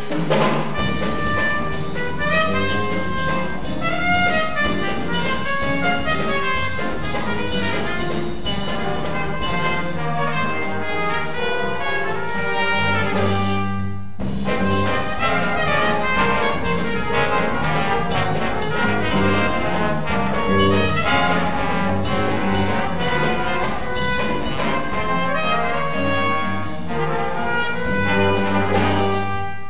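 High school jazz big band playing a full-ensemble passage: trumpets, trombones and saxophones over guitar, bass and drum kit. The whole band stops for a split second about fourteen seconds in, then comes straight back in.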